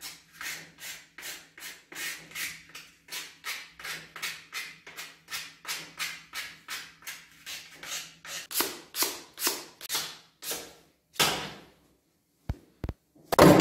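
A small wooden block hand-sanded with sandpaper: rhythmic rasping back-and-forth strokes, about three a second, getting louder in the last few seconds before they stop. Then two sharp clicks and a heavy door thud at the very end.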